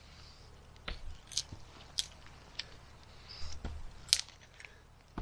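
A small neck knife working into wood: irregular crisp crunches and clicks about every half second to a second, two of them with a dull knock. The loudest crack comes a little after four seconds in.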